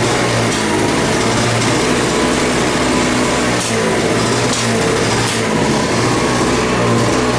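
Old two-stroke single-stage gas snowblower engine running steadily at a constant speed.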